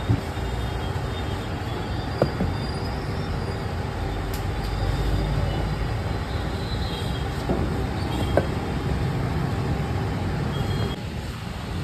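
Steady low rumble of street traffic, with a few sharp knocks.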